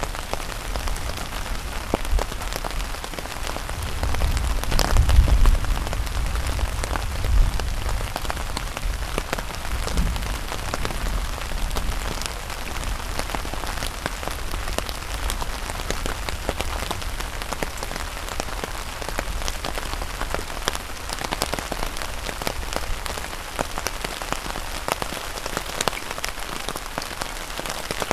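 Steady rain falling during a thunderstorm, with many sharp drop ticks throughout. A low rumble swells about four seconds in and fades by about seven seconds.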